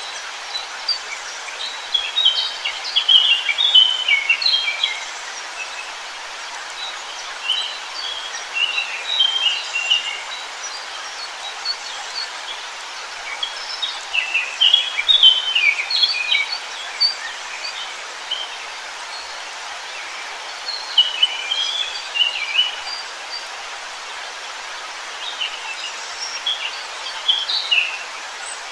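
Songbirds chirping and singing in short, high bursts every few seconds over a steady rushing hiss of forest ambience.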